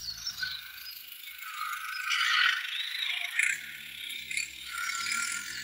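Remote-control toy excavator driving, its small gear motor and plastic tracks rattling unevenly.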